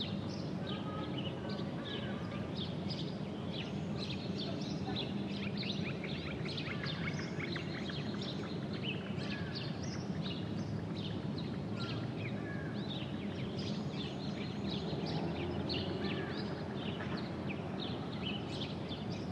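Many small birds chirping continuously, short quick calls overlapping one another, over a steady low background rumble.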